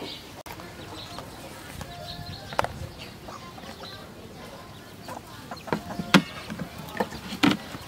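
Chickens clucking, with three sharp knocks as a plate is handled against a plastic bowl: one a few seconds in and two close together near the end.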